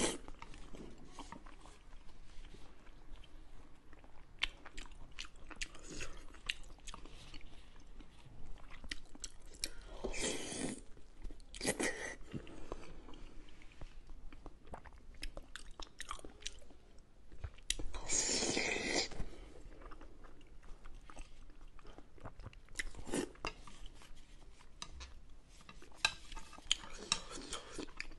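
Close-miked chewing and biting of fatty pork belly: many wet, sharp mouth clicks and smacks, with a few longer, louder stretches about ten, twelve and eighteen seconds in.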